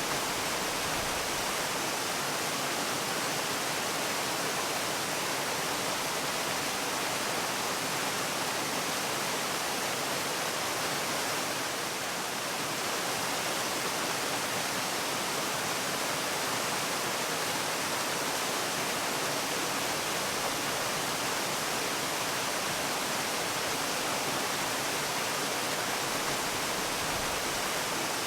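Waterfall rushing steadily, a dense, even hiss of falling water.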